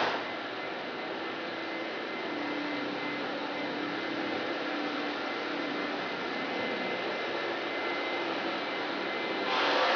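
Steady machine hum and hiss, with faint steady tones running through it. A brief louder rush comes at the start and again near the end.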